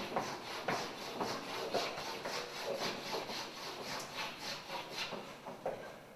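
White chalk scraping hard across a blackboard in quick, forceful strokes, about two a second, stopping shortly before the end.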